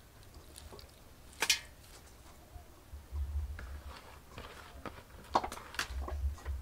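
Hands squeezing grated coconut soaked in warm water to press out coconut milk: faint wet squishing, with a few sharp clicks, the loudest about a second and a half in and again near the end, and some low rumbling bursts.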